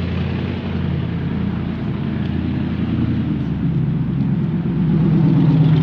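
A loud car engine running close by on the street, with a steady low drone that grows louder near the end.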